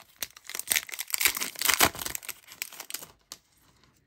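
Plastic trading-card hanger pack wrapper being torn open by hand, crinkling and ripping, loudest about a second in and dying away near the end.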